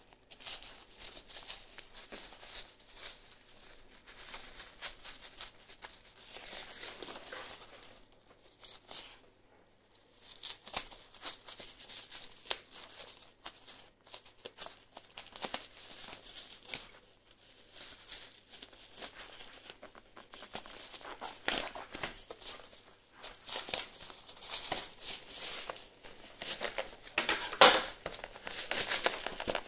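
Plastic bubble wrap crinkling and rustling as it is handled and cut open, in irregular bursts with short pauses. A sharper, louder crackle near the end.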